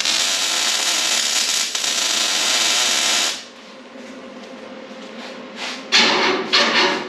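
Angle grinder running against the steel tubing of a race car's front bumper for about three seconds, a steady hissing grind, then cut off. Near the end come two short, loud noisy bursts at the bumper.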